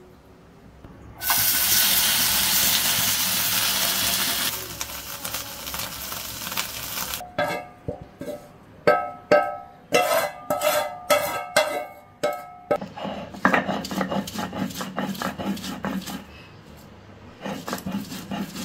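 Chepa shutki (dried fish) sizzling as it fries in a pan, cut off about seven seconds in. Next comes a run of sharp, ringing metal knocks: the spatula striking the pan as the fish is tipped out. Last come rhythmic rubbing strokes of the fish being crushed on a stone grinding slab.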